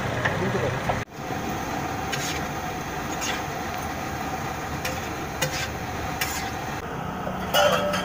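Flat metal spatula scraping and knocking on a large pav bhaji griddle (tawa) as the bhaji is stirred and mashed, over a steady sizzle. The strokes come every second or so, with the loudest near the end.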